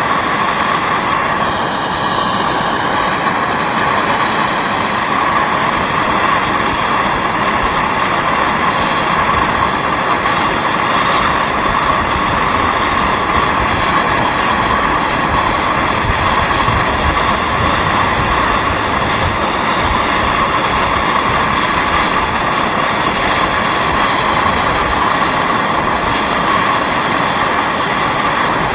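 MAP gas torch flame burning with a steady, loud hiss, heating a small steel socket to red heat.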